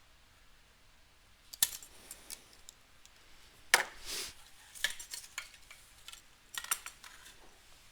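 A handful of sharp metallic clinks and knocks from handling a brass wall-faucet stem assembly, the loudest a little before the middle, followed by a brief rustling scrape.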